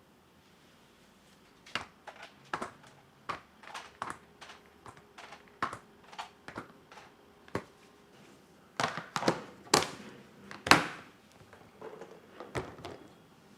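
Irregular knocks and clicks of kitchen items being handled, starting about two seconds in and clustering into a louder run of knocks near the middle.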